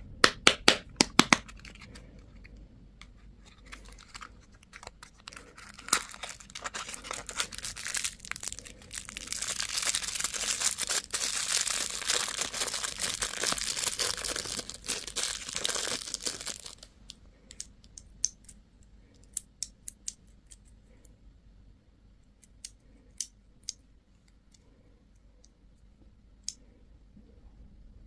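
Plastic candy wrapping being handled and torn open: a quick run of sharp clicks at the start, then a long stretch of crinkling and tearing that is loudest in the middle, thinning out into scattered clicks.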